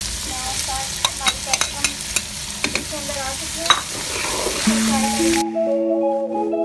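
Diced carrots, peas and green peppers sizzling in hot ghee in a pan, stirred with a spatula that clicks and scrapes against the pan. Near the end the frying cuts off and background music with a steady melody takes over.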